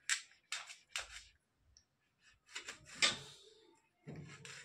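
A kitchen knife slicing through a tomato, the blade tapping the stainless steel plate beneath with each cut. Several short, sharp clicks at an uneven pace, the loudest about three seconds in.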